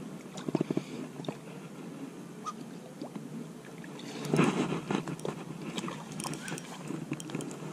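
Close rustling and scraping of grass and clothing brushing against a body-worn camera as an angler moves through tussock grass with a fishing rod. A quick run of clicks about half a second in; the rustling grows louder and denser from about four seconds in.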